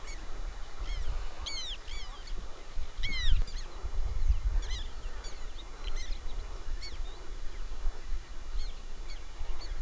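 Birds calling: many short, sharply falling chirps and whistles, the loudest about one and a half and three seconds in, over a steady low rumble.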